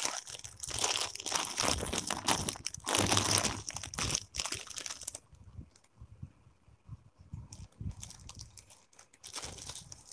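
Packaging crinkling and rustling as it is handled, in irregular bursts, loudest about three seconds in, quieter in the middle and picking up again near the end: a necklace being taken out of its packing.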